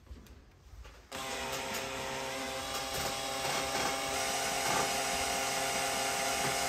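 Cordless drill starting about a second in and running steadily under load, its bit drilling out the rivet of a rear-entry ski boot's pivot hinge.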